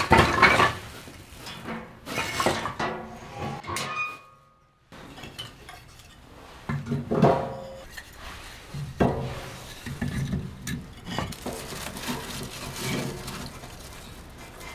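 Metal cookware and utensils being handled, clanking and clinking in a series of separate knocks, some of them ringing briefly.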